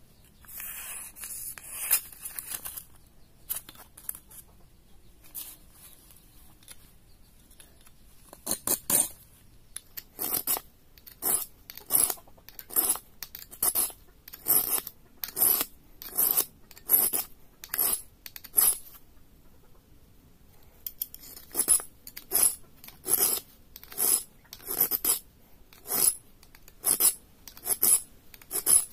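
Knife blade drawn across a sharpener in repeated scraping strokes, a little under one a second, with a short pause about two-thirds of the way through.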